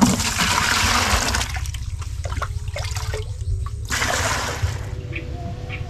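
Water sloshing and splashing: a burst lasting about a second and a half, then a shorter one about four seconds in, with a few small clicks between, over a low steady rumble.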